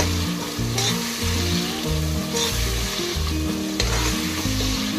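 Green-chilli paste sizzling steadily in hot oil in a pressure cooker while a metal spoon stirs it, with three short spoon scrapes. Background music with a steady beat plays underneath.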